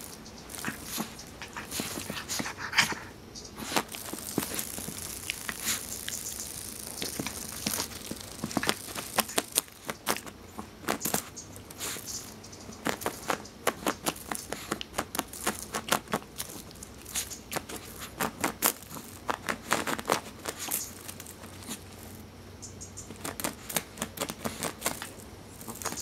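Irregular scratchy crackles and clicks as a Miniature Pinscher paws at a cicada on a carpet. The clicks come in quick clusters, thickest through the middle stretch.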